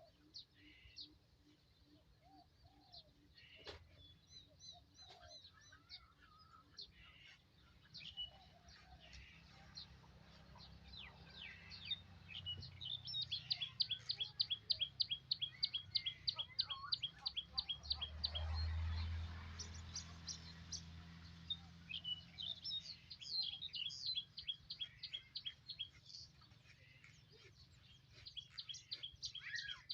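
Small birds chirping, with fast runs of repeated high chirps about midway and again later. A low rumble swells and fades about two-thirds of the way through.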